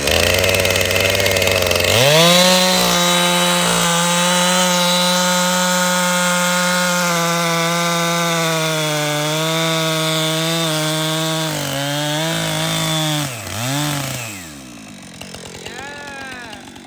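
Chainsaw cutting cherry wood. It runs at low speed, then opens up to a steady high whine about two seconds in and holds under load. Near the end it drops back and dies down.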